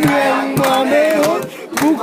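A group of men singing together in chorus, with hand claps keeping time over the voices.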